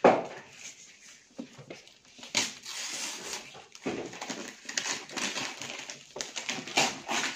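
Gift wrapping paper being torn and crumpled off a box by hand: irregular rips and crinkles, the loudest a sharp crackle right at the start.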